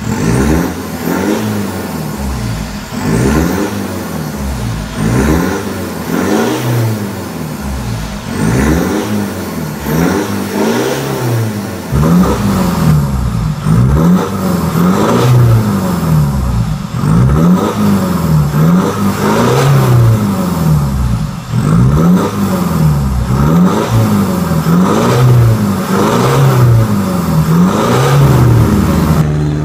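Mitsubishi Montero Sport's aftermarket twin-tip exhaust as the stationary engine is blipped over and over, each rev rising and falling about once a second. It gets louder about twelve seconds in, with the microphone close to the tailpipes.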